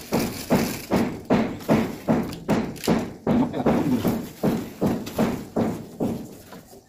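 Hand-boring pipe being plunged up and down in a flooded borehole, a wet, slushy stroke about two and a half times a second as water and mud are pumped up through the pipe. The strokes fade out near the end.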